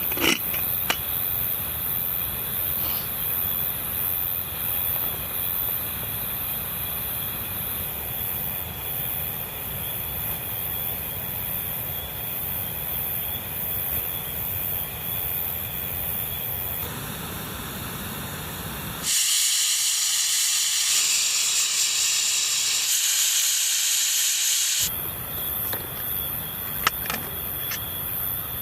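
Steady rushing noise of rain falling and river water flowing. For about six seconds in the middle it gives way to a louder, thinner hiss without the low rumble.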